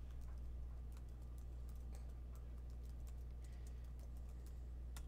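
Computer keyboard typing: a run of faint, irregular key clicks as a search word is typed, over a steady low hum.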